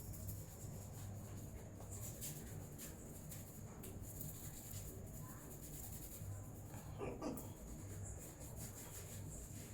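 Hands rubbing and scratching over a person's hair and scalp in a head massage: soft scratchy rustling with many light clicks, and one brief louder sound about seven seconds in.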